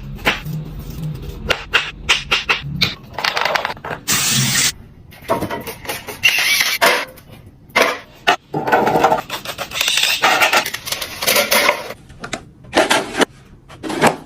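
Quick-cut kitchen cooking sounds: bursts of hissing broken by sharp clicks and clatters.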